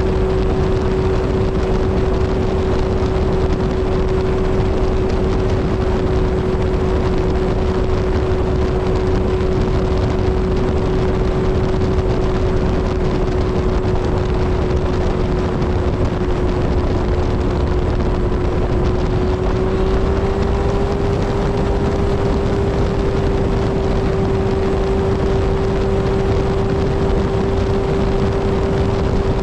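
Kawasaki Z1000 inline-four motorcycle cruising at a steady highway speed, its engine holding one even note over a constant rush of wind, the note stepping slightly higher about twenty seconds in.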